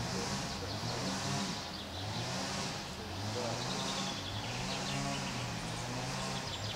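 Woodland ambience: a high hissing insect chorus swelling and fading about once a second, over a low steady hum.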